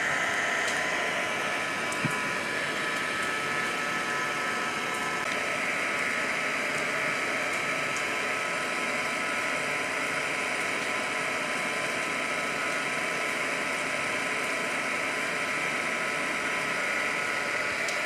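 A steady, even drone and hiss with several thin high tones held throughout, starting abruptly at a cut.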